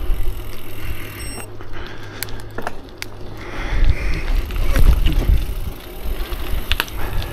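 Gravel bike rolling along a dirt trail: steady low tyre rumble on the loose surface, with a few sharp clicks and rattles from the bike.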